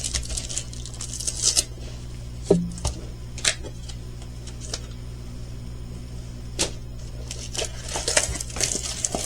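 Plastic packaging crinkling and rustling as it is handled, with scattered light clicks and taps, busiest near the start and the end.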